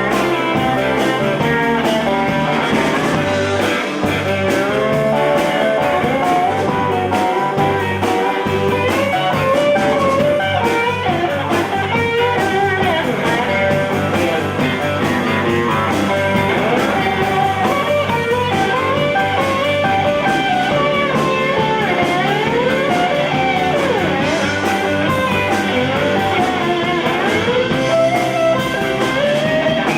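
Live blues band playing an instrumental passage: a guitar lead with many bent notes over a steady band backing.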